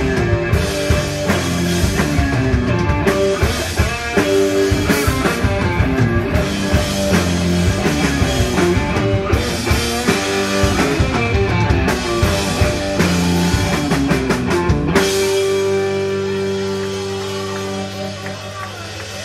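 Desert rock band playing live, with electric guitar, bass and drum kit. About fifteen seconds in, the drums stop and a last held chord rings on and slowly fades.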